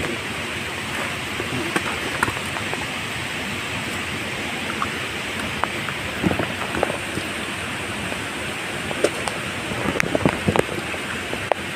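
Steady rush of water, with scattered light taps and wet slaps as caught fish are handled on wet rock.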